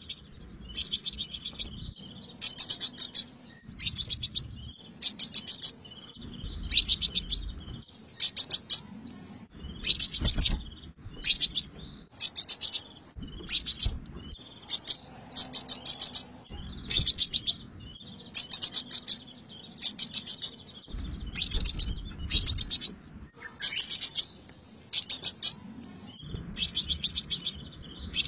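A sunbird singing: short, rapid trills of high, sharp ticking notes, one phrase about every second, played as a decoy call to lure sunbirds to a trap.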